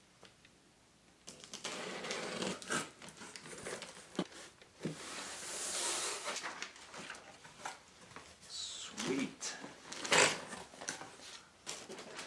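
A large cardboard shipping box being opened by hand: packing tape pulled along the seam, flaps folded back, with scraping, knocks and rustling of cardboard and plastic air-pillow packing. A longer scraping rip comes about five seconds in.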